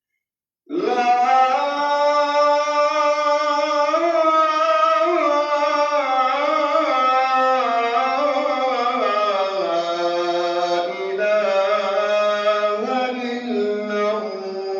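A solo voice starts chanting melodically, cutting in abruptly from silence just under a second in, drawing out long, ornamented held notes that step and glide in pitch.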